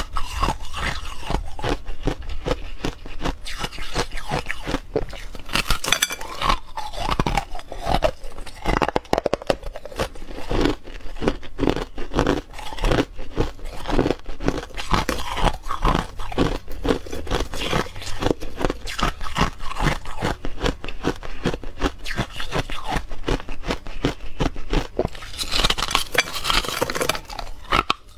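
A person biting and chewing buckwheat ice: a dense, unbroken run of crisp crunches and cracks.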